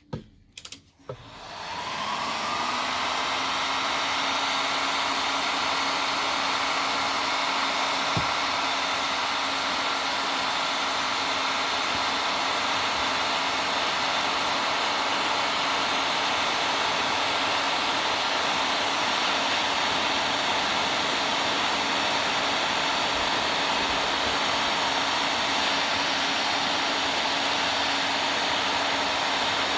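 Electric heat gun switched on about a second in, its fan motor spinning up and then running with a steady whir and rush of hot air while heat shrink tubing is shrunk.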